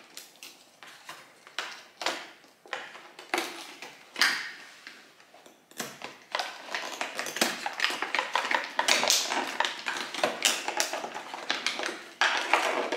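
Cardboard advent calendar door being pried and torn open and a small product pulled out of its packaging: scattered clicks and crackles, turning into dense rustling and crackling about halfway through.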